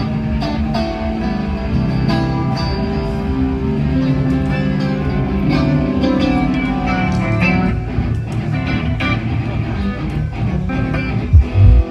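Live band sound check through a PA system: electric guitar and bass playing sustained notes, with a few loud, low thumps near the end.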